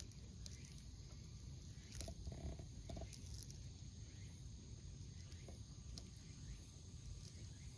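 Faint outdoor ambience: a steady low rumble with a thin, steady high-pitched tone over it and a few faint ticks.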